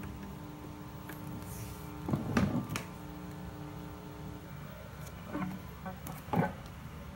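Knocks and clicks from hands working a NUX MFX-10 guitar multi-effects floor unit over a faint steady electrical hum. There is a cluster of knocks a couple of seconds in, then a few more thumps past the middle as the expression pedal is pushed down to switch the wah on.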